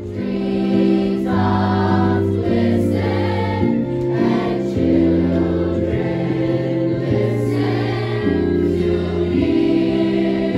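Choir singing sustained chords, the harmony moving to a new chord every second or two.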